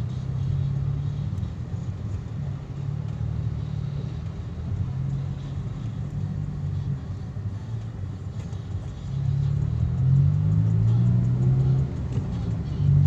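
Car engine and road noise heard from inside the cabin, a steady low hum that grows louder about nine seconds in.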